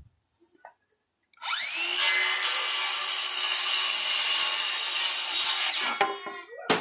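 Electric power tool spinning up and running steadily on wood for about four and a half seconds, then stopping, followed by a short sharp knock.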